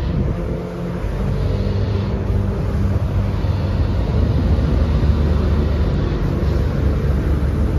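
The 95-horsepower diesel engine of a 2006 Kobelco ED150 Blade Runner excavator running steadily, with a slight rise in level partway through as the arm is worked.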